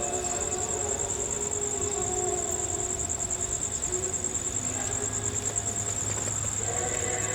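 Crickets chirring in a steady, fast-pulsing high trill. Faint sustained tones, some sliding in pitch, drift in near the start and again near the end.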